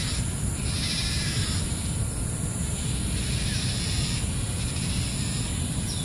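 Outdoor field ambience: a steady low rumble, typical of wind on the microphone, with a high hissing buzz that swells and fades several times, about once a second.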